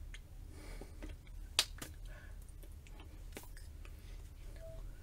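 Faint clicks and taps from a person signing, as hands meet and lips and tongue part, the sharpest about a second and a half in. Under them runs a low steady hum.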